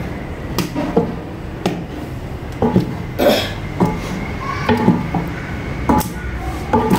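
Long wooden paddle stirring thick haleem in a large aluminium degh, knocking against the pot about once a second as the mixture is churned and mashed.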